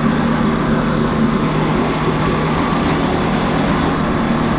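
Jet boat's engine running at a steady, even speed on its first start-up.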